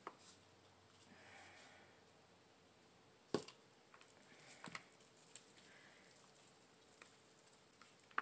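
Near silence with faint handling noises of a potted plant: one sharp knock a little over three seconds in, a few light ticks a second or so later, and soft rustling.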